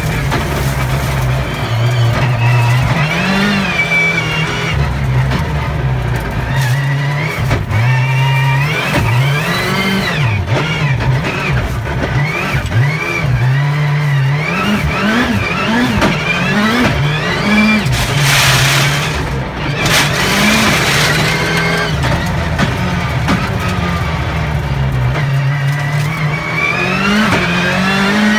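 Race car engine heard from inside the cockpit, repeatedly revving up and dropping back as it shifts and slows through the corners of a lap. About two-thirds of the way in comes a burst of rushing noise.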